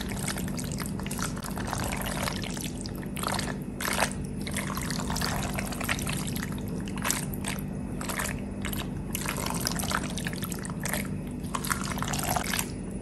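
Penne in a thick creamy sauce being stirred and turned with a silicone spatula in a pot: irregular wet squelches and sloshes, over a steady low hum.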